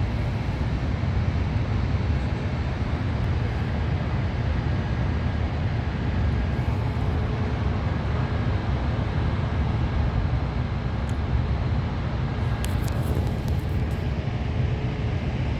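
Steady low rumbling background noise, heaviest in the bass, with a few faint high ticks about three-quarters of the way through.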